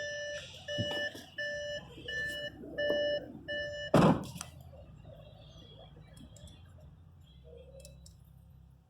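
Electronic warning beeps repeating about twice a second, which stop with one loud thump about four seconds in. After that only a faint, steady low hum remains, from the Audi 3.0 V6 idling.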